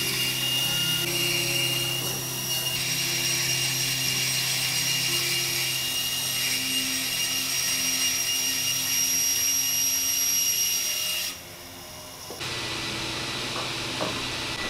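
Bandsaw running steadily as its blade cuts through oak boards. About eleven seconds in the sound drops away suddenly, leaving a quieter steady hum.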